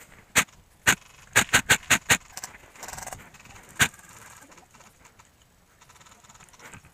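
Airsoft gunfire: eight sharp cracks. Two single shots come half a second apart, then a quick run of five in under a second, then one more about two seconds later.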